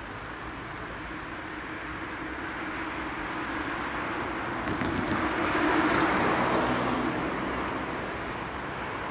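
A car drives past over the level crossing, with tyre noise and engine hum. It grows louder, peaks about six seconds in, then fades away, over a steady background of road traffic.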